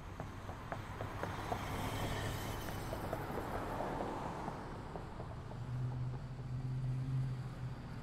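Motor vehicle running, a steady low engine hum with scattered light ticks and a swell in level about two to four seconds in.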